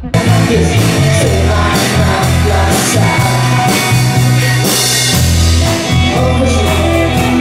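A live rock band playing loud, with drums, heavy bass and singing; it starts abruptly.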